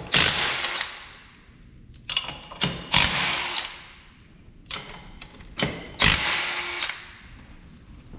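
DeWalt cordless impact wrench spinning off a truck wheel's lug nuts in several short bursts, each starting sharply and trailing off over about a second.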